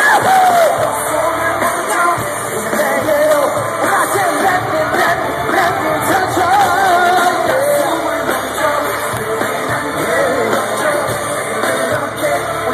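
Live amplified pop music with a singing voice, as heard from among the audience in a large arena, with fans yelling over it.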